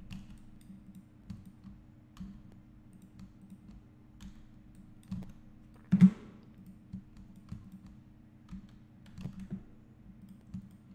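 Scattered clicks and key taps from a computer mouse and keyboard, with one louder knock about six seconds in, over a steady low hum.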